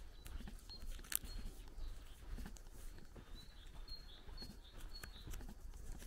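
Footsteps on a sandy dirt road at walking pace, with small birds giving a run of short high chirps from about the middle on. A single sharp click about a second in.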